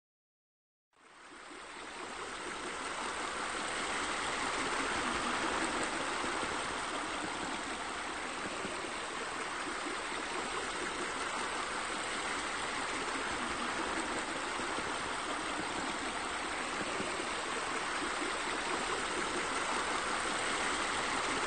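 Water running steadily over a weeping rock water feature, a continuous stream-like rush. It fades in about a second in and then holds steady.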